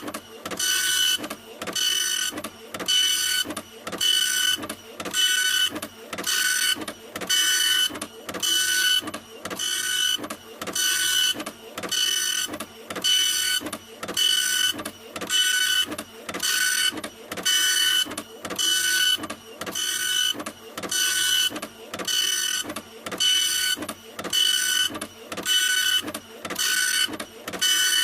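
A printer running, its mechanism whirring in short, evenly repeated strokes, just under two a second, each with a steady whine.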